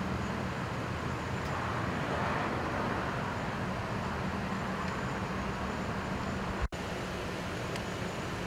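Steady low hum of idling vehicle engines over a continuous background of road noise. The sound drops out abruptly for an instant about two-thirds of the way through, at an edit.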